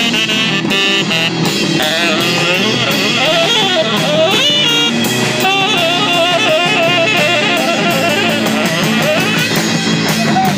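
Live band playing an instrumental passage, led by guitar over drums, with a wavering lead line.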